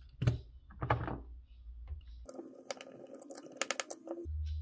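Small screws being undone with a precision screwdriver in the plastic case of an Extech DT100M laser distance meter. Two sharp clicks come near the start, then from about halfway a second or two of quick clicking and scraping as the screwdriver works in the case.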